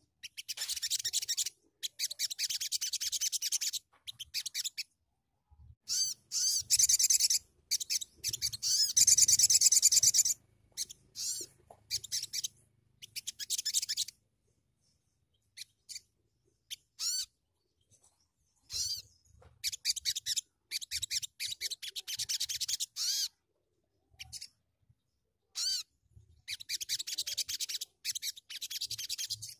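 Sogon, a sunbird kept as a songbird, singing in bouts of fast, dense, high-pitched twittering one to four seconds long, broken by short pauses and sparser stretches of scattered notes.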